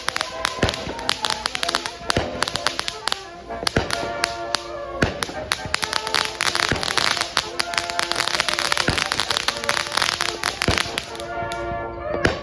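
Consumer fireworks going off in quick succession: many sharp bangs and crackling, with music playing.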